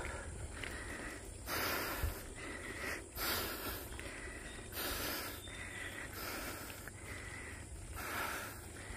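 A cyclist breathing hard while pedalling uphill: loud, rough breaths every couple of seconds, the sign of heavy exertion on the climb.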